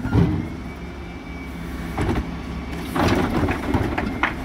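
Dennis Elite 6 refuse truck's engine running steadily while its Terberg rear bin lift works, with several metallic clunks as wheelie bins are hooked on and lifted, a cluster of them about three seconds in.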